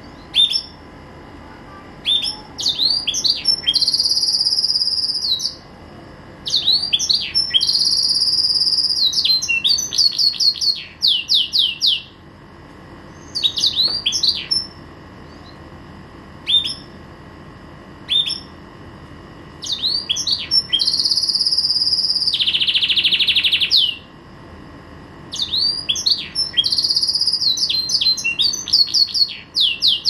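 Green canary singing in long phrases of rapid rolling trills and long, buzzy, high held notes, with pauses of a second or two between phrases. A harsh rasping stretch comes in one phrase about three quarters of the way through.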